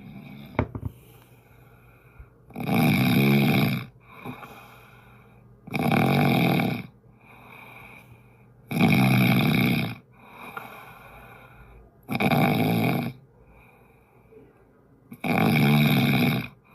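A person snoring: five loud snores, each about a second long, coming roughly every three seconds, with fainter sounds between them.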